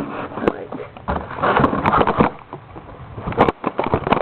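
Hoover WindTunnel upright vacuum cleaner running, with irregular knocks and rustles from close handling over it.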